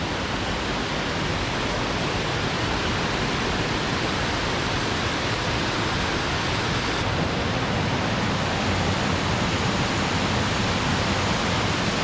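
Pistyll Cain waterfall rushing, a loud, steady, unbroken wash of falling water close by.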